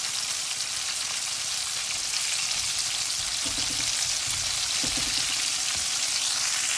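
Flour-coated chicken wings deep-frying in very hot oil: a steady, even sizzle.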